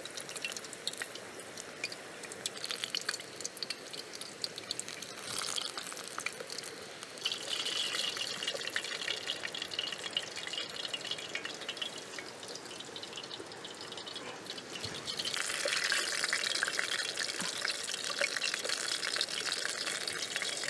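Hot oil sizzling and crackling around empanadas deep-frying in a small stainless-steel pan. It grows louder about seven seconds in and again about fifteen seconds in.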